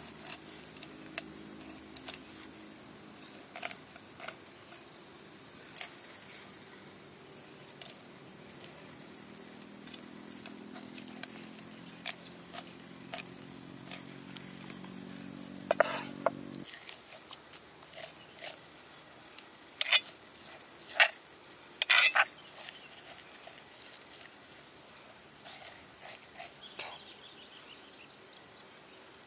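A cleaver cutting and scraping raw chitala fish flesh on a wooden cutting board: soft scrapes broken by scattered sharp taps and clicks, with a cluster of louder ones in the middle. A low hum underneath stops abruptly partway through.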